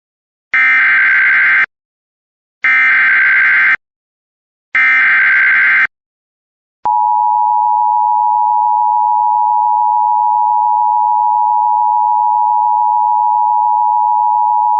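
Emergency Alert System SAME header: three data bursts of about a second each, a click, then the steady EAS attention tone, which runs about eight seconds. The sequence opens a severe thunderstorm warning.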